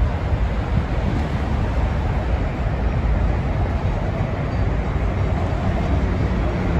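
Steady traffic noise from a busy highway ramp, an even wash of road sound over a low, uneven rumble.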